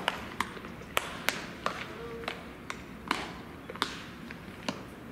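Baseballs smacking into leather gloves during catch practice: a string of sharp pops at an uneven pace, about two or three a second, some louder and closer than others.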